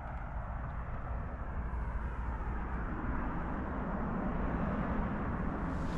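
Steady low rumble of road traffic crossing the bridge overhead, swelling a little in the middle.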